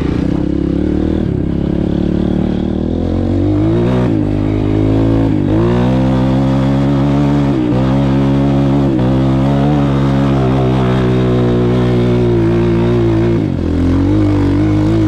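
Honda CRF230 dirt bike's single-cylinder four-stroke engine running under hard throttle. The revs climb about four seconds in, then hold high with several brief dips.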